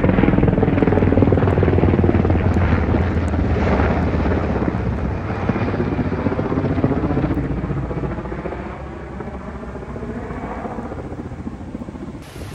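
Helicopter flying overhead, its rotor noise loud at first and fading gradually over the second half as it moves away.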